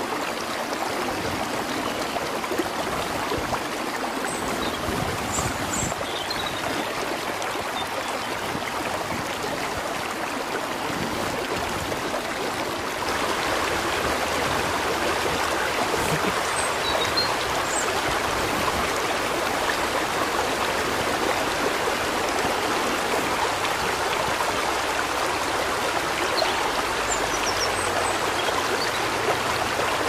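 Water of a rocky stream running steadily, a little louder from just before the halfway point.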